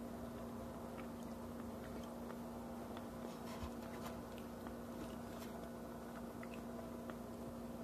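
Faint eating sounds of fingers picking apart steamed fish wrapped in banana leaf and foil: scattered small clicks and crinkles over a steady low hum.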